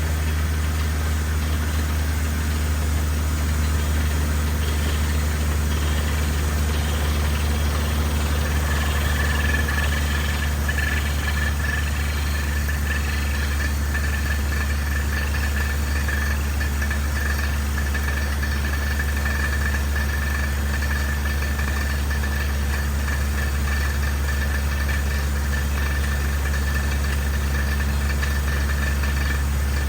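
Engine running steadily at a constant speed, a deep even hum with no change in pace; a thin high whine joins about eight seconds in.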